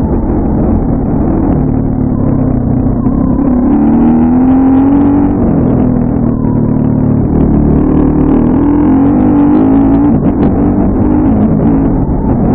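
Dirt bike engine running under way, its pitch rising and falling as the throttle is worked, revving up twice. The sound is muffled, with the highs cut off by wind-noise filtering.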